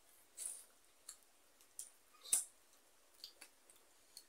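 Close-up eating sounds: wet mouth smacks and chewing clicks from a person eating rice and curry with her fingers. A scattered run of short clicks, the loudest a little over two seconds in.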